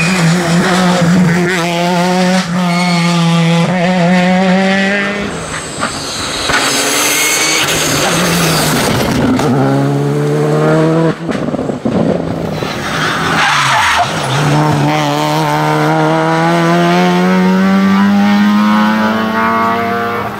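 Rally car engines at full throttle, revving hard and shifting up through the gears as several cars pass in turn. About a third of the way through there is a burst of hissing tyre and gravel noise from a car sliding on a loose corner.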